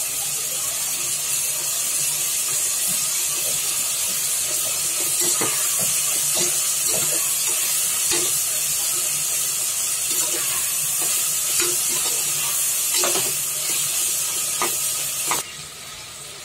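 Hot oil sizzling in a pressure cooker as soaked kidney beans and ginger-garlic paste are fried, with a perforated metal spatula scraping and knocking against the pot as it stirs. The sizzle cuts off sharply about a second before the end.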